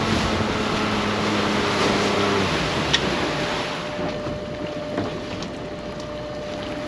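Small fishing boat's engine running steadily under way over wind and water noise, then throttled back about two and a half seconds in, leaving a quieter drift with a faint steady whine and a sharp click soon after.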